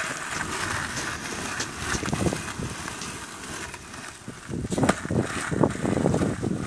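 Skateboard wheels rolling on pavement as an ollie off a curb is attempted, then a run of loud clattering knocks of the board striking the ground from about four and a half seconds in.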